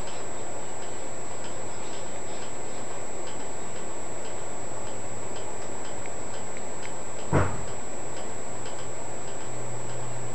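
Regular light ticking over a steady background hiss, with a single short knock about seven seconds in and a low hum that starts near the end.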